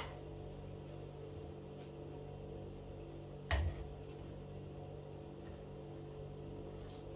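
A low steady hum with a single short knock about halfway through.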